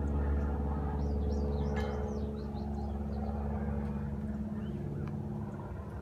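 A steady, low mechanical hum that slowly fades, with a few faint bird chirps about a second in.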